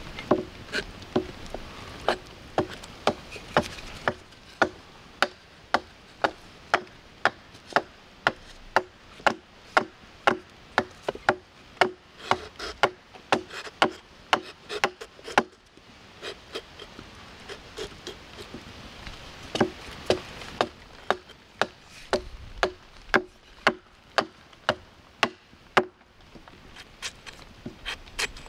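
Small hatchet chopping a wooden spoon blank held against a chopping stump: rapid, regular strokes, about two a second, with a pause of a few seconds a little past halfway.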